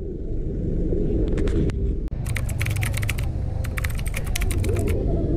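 Two quick runs of sharp clicks, about ten a second, over a steady low vehicle rumble.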